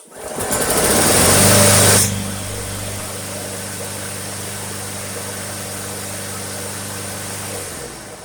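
Briggs and Stratton 6.5 hp single-cylinder lawnmower engine, fitted with a replacement carburetor, pull-started and catching at once. It is loudest for the first two seconds, then runs steadily for about six seconds before being shut off and winding down near the end.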